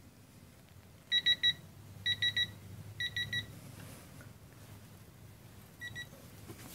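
Electronic beeping from a digital torque wrench adapter as the swingarm axle nut is tightened toward its 26 ft-lb setting. There are three quick runs of three to four short high beeps about a second apart, then a fainter short pair near the end.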